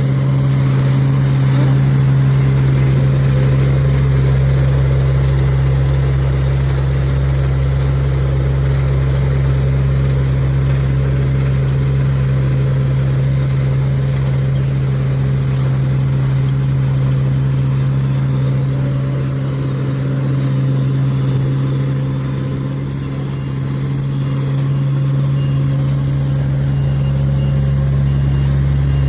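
Yanmar YH323 mini combine harvester's diesel engine running steadily, with a low, even drone. A faint, evenly repeating high beep joins near the end.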